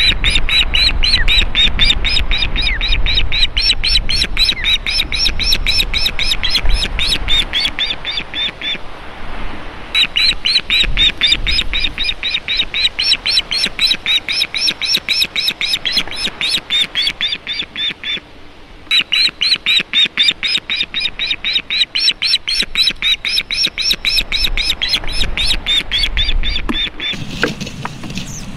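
Adult osprey giving its shrill alarm call: long runs of sharp, repeated whistled notes, about five a second, broken by two short pauses. The bird is agitated at a raider on its nest.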